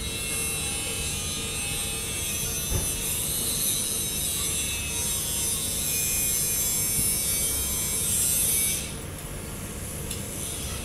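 Odakyu 50000 series VSE Romancecar approaching along the track: a steady, high rasping hiss over a low rumble, which drops away suddenly about nine seconds in.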